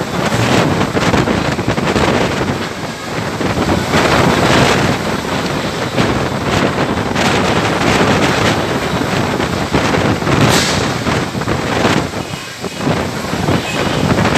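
Storm-force wind buffeting the microphone in loud surging gusts, with heavy rain.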